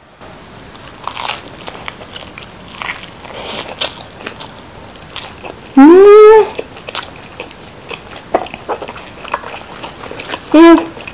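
Close-miked biting and chewing of Chicago deep-dish pizza with a crisp crust, with many small crunches. Twice, about six seconds in and again near the end, a loud closed-mouth "mmm" of enjoyment rises and falls in pitch.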